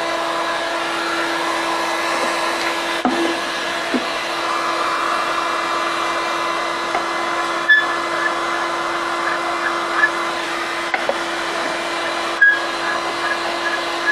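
Electric heat gun running steadily, its fan blowing with a constant hum, while it is used to soften old varnish on wood. A few sharp ticks sound over it in the second half.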